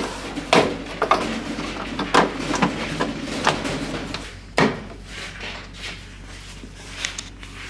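A plastic microwave cover being pressed and fitted into place by hand: a series of sharp clicks and knocks, with scraping and rubbing in between as its tabs and catch are worked in.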